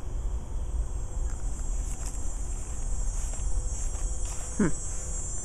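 Crickets chirping in a steady, high-pitched chorus over a low rumble. About four and a half seconds in, a brief sound sweeps downward in pitch.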